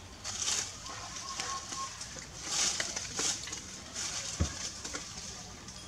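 Dry leaves and twigs rustling and crackling in several short bursts as macaques move and forage among them, with a single dull thump about four and a half seconds in.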